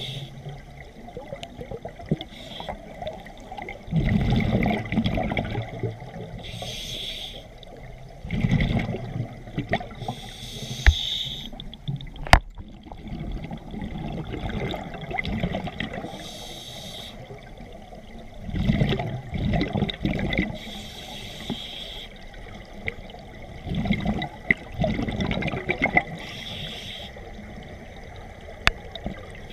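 Scuba diver breathing underwater through a regulator: a hiss on each inhale and a burst of exhaust bubbles on each exhale, repeating every four to five seconds. A single sharp click about twelve seconds in.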